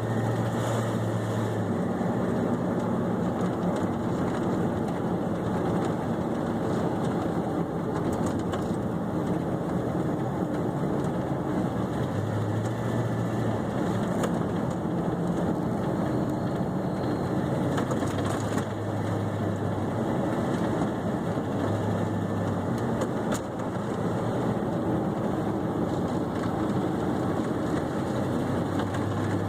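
Ford F-150 pickup being driven: steady engine and road noise, with the low engine tone dropping out and returning several times, and the ticking sound the truck makes while driving.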